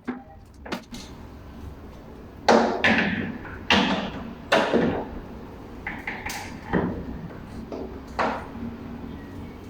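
Handling knocks and clatter as mannequin parts and packaging are moved about. There are several sharp knocks with short tails, the loudest three a second or so apart about two and a half to five seconds in, then a few lighter ones.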